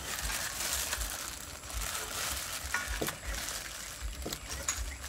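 Meat cleaver chopping boiled beef tripe and intestine on a thick wooden chopping block: a few separate knocks of the blade on the wood, spaced a second or more apart, over a steady hiss.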